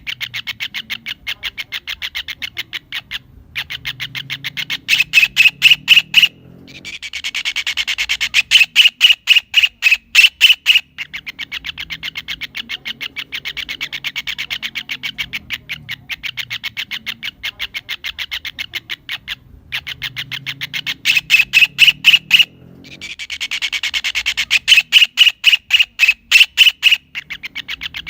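Kingfisher calling in a long rapid series of evenly spaced harsh notes, several a second. The series swells four times into louder bouts of a couple of seconds each, then drops back to a softer steady run.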